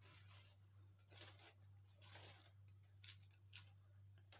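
Faint crackling as a crisp fried churro is torn apart by hand, a few soft crunches with two sharper ones near the end, over a low steady hum.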